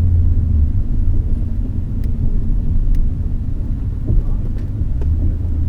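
Steady low rumble of a Nissan Skyline GT-R (BNR32) being driven: its RB26DETT twin-turbo straight-six running under road noise, with a few faint ticks.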